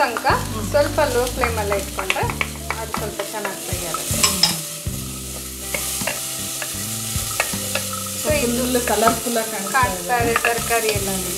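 Chopped vegetables being stirred in hot oil in a pan: a spatula scrapes and knocks against the pan again and again over the sizzle of frying.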